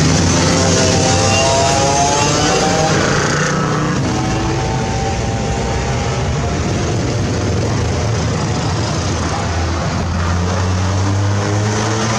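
Motorcycles riding past one after another, their engines rising in pitch as they accelerate, over a steady low engine hum. The sound turns duller about three and a half seconds in.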